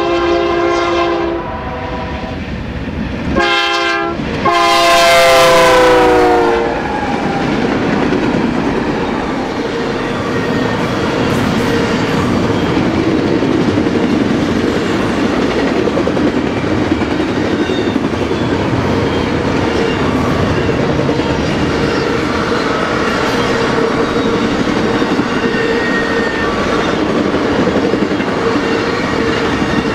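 Diesel locomotive air horn on a BNSF intermodal freight train: one blast ends about a second in, a short one follows, then a long blast whose pitch drops as the locomotives pass. After that comes the steady rolling rumble of double-stack container and trailer cars, with clickety-clack from the wheels over the rail joints.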